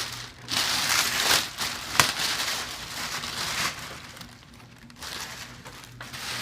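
Packaging being handled and pulled off the table, crinkling and rustling in irregular bursts, with a sharp click about two seconds in.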